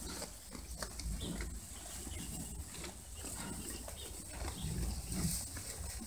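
Corriedale and Finn sheep eating hay at a feeder: irregular rustling of hay and crunching as they pull and chew.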